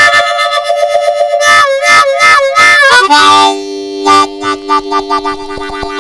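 Diatonic harmonica played in chords with fast, rhythmic breathing in a train imitation. For about three seconds it plays a higher chord in quick pulses, then it drops to a lower chord that chugs in a rapid, even rhythm.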